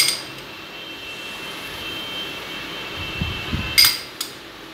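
A metal spoon clinking twice against a small glass bowl while sliced walnuts are sprinkled from it, the clinks coming close together near the end. Under it runs a faint steady high tone with a low rumble just before the clinks.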